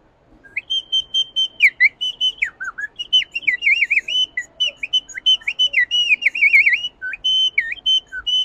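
A small Amazonian bird-call whistle blown in quick warbling phrases, imitating birdsong. It gives rapid chirps and trills that dip and rise in pitch, starting about half a second in.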